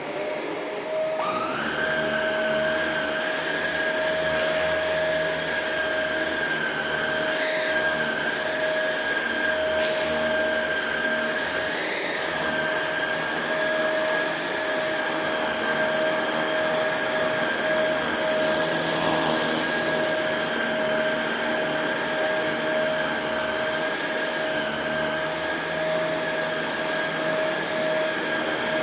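Shark Rotator Pro Lift-Away NV500 upright vacuum switching on, its motor whine rising over the first second or two, then running steadily while vacuuming carpet.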